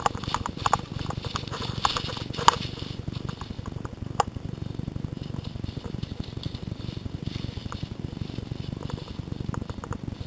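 Footsteps crunching through dry leaf litter and twigs, with a steady low rumble on the microphone. Several sharp snaps come in the first few seconds, the loudest about two and a half seconds in, and one more at about four seconds.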